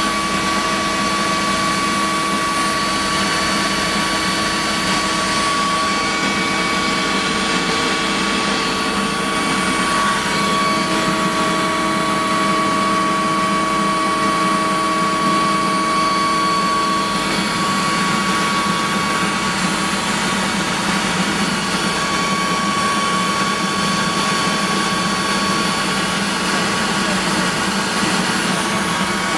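Mi-2 helicopter's twin GTD-350 turboshaft engines and rotor running steadily, heard inside the cockpit: a constant loud rush with a high turbine whine.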